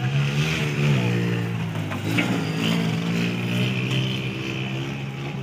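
Diesel locomotive engine of an approaching train, a steady low drone that rises briefly in pitch about half a second in, then settles.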